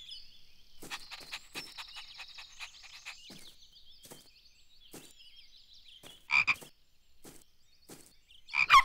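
Cartoon frog croaking: a double croak about six seconds in and a louder one near the end. Under it are bird chirps and trills and a run of light taps.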